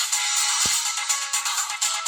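LG BL20 Chocolate mobile phone playing one of its built-in polyphonic ringtones: a busy electronic melody with almost no bass. A single low thump comes about a third of the way in.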